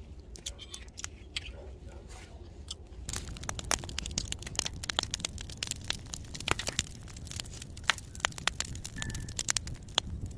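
Wood fire crackling, with irregular sharp pops and snaps that turn much denser about three seconds in.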